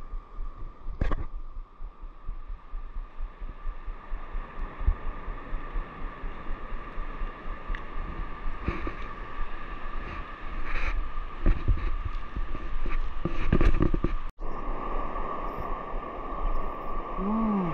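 Scattered short knocks and clicks of a caught fish and lure being handled with gloved hands, over a steady high hum.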